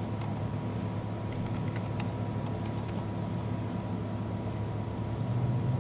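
Keystrokes on a computer keyboard as a password is typed: irregular light clicks, some in quick runs, over a steady background hum.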